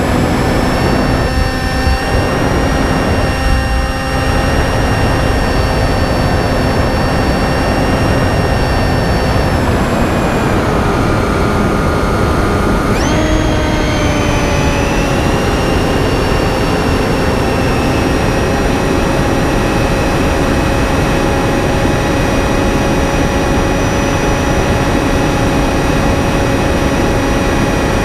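Finwing Penguin's electric motor and pusher propeller whining in flight over a steady rush of noise. About ten seconds in, the whine drops in pitch as the throttle is cut back; about three seconds later it jumps sharply back up and settles to a steady pitch.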